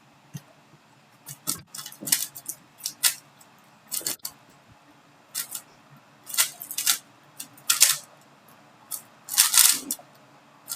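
3x3 Rubik's speed cube being turned by hand: irregular sharp plastic clicks and short rattling runs of layer turns, the longest run about nine to ten seconds in.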